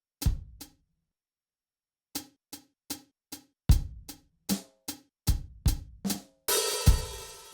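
SoundKing SD20AM electronic drum kit's stock drum sounds played in a sparse pattern of single hits with gaps between them. Deep kick-drum thumps are mixed with lighter drum strokes, and the pattern ends on a cymbal crash that rings out.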